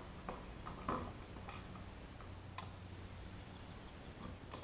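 A handful of light, irregular clicks and taps as a duplex wall receptacle is pushed into a plastic electrical box and its mounting screws are driven with a screwdriver, over a faint steady low hum.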